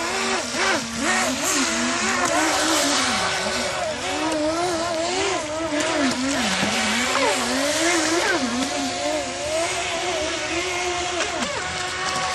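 Brushless electric motors of two radio-controlled NQD jet-ski boats whining, their pitch rising and falling constantly as they are throttled and turned, over a steady hiss.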